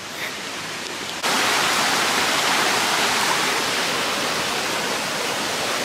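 Flowing water rushing steadily, jumping louder about a second in.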